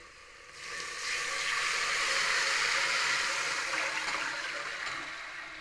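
Buttermilk poured in a steady stream from a pan into a steel cooking pot of fried onions and spices. The splashing starts about half a second in and tapers off near the end.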